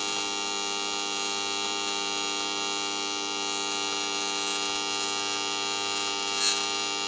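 TIG welding arc buzzing steadily on an aluminium plate.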